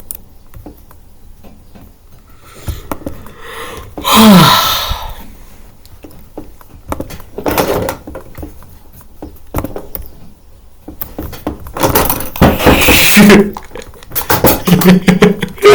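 A person sneezing once, loudly and suddenly, about four seconds in, the voice dropping in pitch at the end of the sneeze. More loud, breathy bursts follow about twelve seconds in and near the end.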